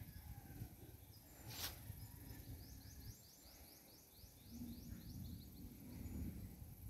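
Quiet open-air ambience with a low rumble, a single short click a little over a second in, and, from about two seconds in, a run of rapid high rising chirps at about five a second that lasts a couple of seconds.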